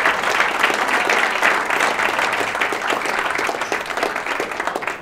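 Audience applauding, the clapping gradually thinning and fading toward the end.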